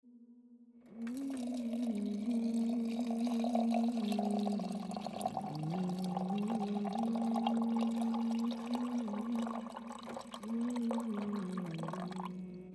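Water poured into a glass jar, splashing and bubbling as it fills. The pour starts about a second in and stops just before the end. A low hummed vocal melody runs underneath.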